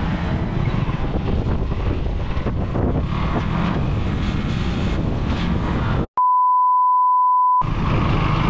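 Wind noise on the microphone and a KTM motorcycle's engine running while riding. About six seconds in, the sound cuts out and a loud, steady single-pitched beep sounds for about a second and a half before the riding noise returns.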